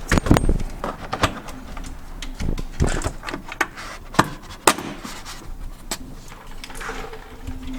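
Irregular clicks and knocks of a plastic wheel-well liner being handled while a plastic push-snap fastener is lined up and pushed into its hole, with a cluster of knocks at the start.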